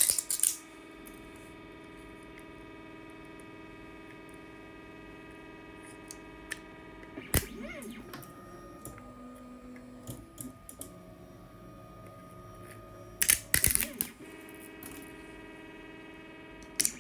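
Scattered sharp plastic clicks and crackles of support material being picked and snapped off a 3D print, with a busier flurry about seven seconds in and another about thirteen seconds in, over a steady hum.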